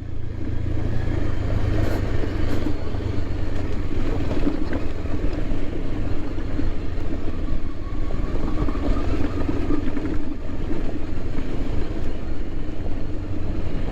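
Motorcycle engine running as the bike is ridden, under a steady low rumble of wind on the microphone.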